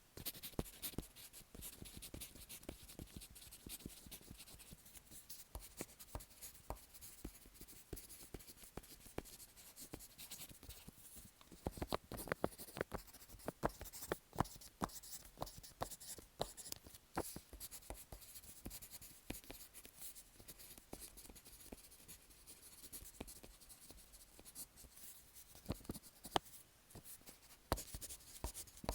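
Handwriting on paper, picked up by a microphone fixed to the paper itself: a steady run of short scratching pen strokes, louder for a few seconds about twelve seconds in and again near the end.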